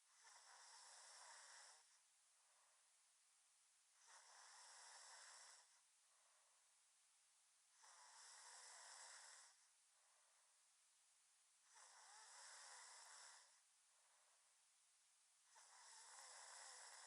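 A sleeping person snoring: five faint, rasping breaths at a steady pace, one about every four seconds.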